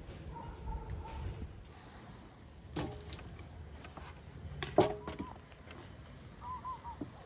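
Small birds chirping in short repeated calls, with a few sharp knocks of raw chickens being handled in a metal basin; the loudest knock, about two-thirds through, leaves a brief metallic ring.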